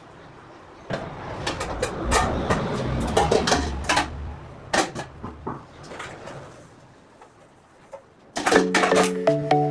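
A run of irregular sharp clicks and knocks for several seconds, then a quiet spell, then background music with steady held notes starting near the end.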